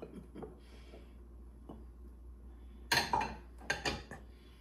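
Bowls and a glass jar knocking and clinking on a kitchen counter: a few soft taps, then a cluster of sharp clatters about three seconds in.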